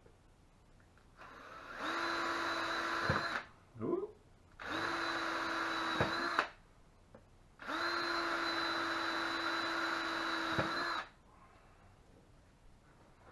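Cordless drill boring holes through PVC pipe: three runs of a steady whine, the third the longest, with a short burst between the first two.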